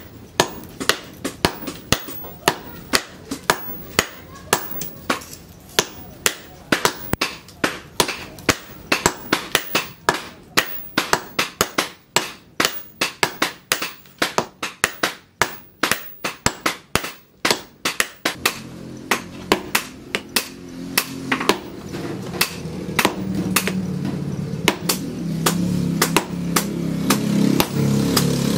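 Rapid hammer blows on hot leaf-spring steel at the anvil, about two to three strikes a second. From about two-thirds of the way in, a low motor hum rises and grows louder under the strikes.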